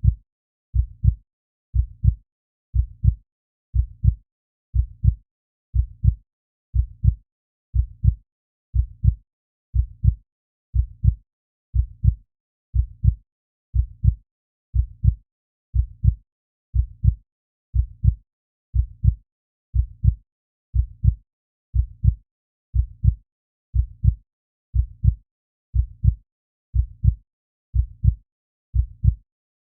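Heartbeat sound effect: steady lub-dub double thumps, low in pitch, at about one beat a second, with silence between beats.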